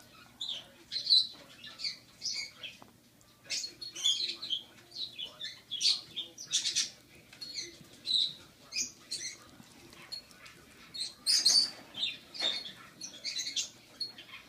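Six-week-old squirrel gnawing a piece of raw carrot: irregular small crunches and clicks of its teeth on the carrot, closely miked.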